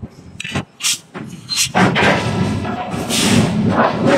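Forge-shop metal noise: several sharp clanks and thuds in the first second and a half, then a loud continuous clatter and din.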